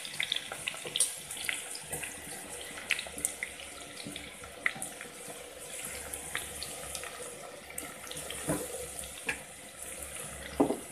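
Finely chopped onions sizzling in hot oil in a steel pot, a steady hiss with scattered sharp crackles and pops.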